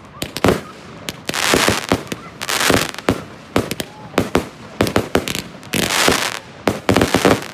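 Aerial consumer fireworks bursting overhead: sharp bangs, many in quick clusters of two to four, alternating with stretches of dense crackling hiss from crackling stars.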